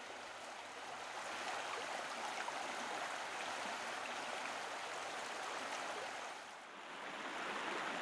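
Water of the Rio, the canal running through Mantua, flowing steadily with an even rushing sound, briefly quieter about six and a half seconds in.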